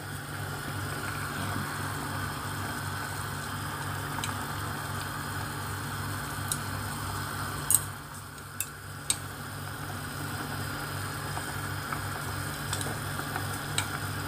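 Pot of broth boiling on the stove, a steady bubbling, over a steady low hum. A few sharp clicks about eight to nine seconds in.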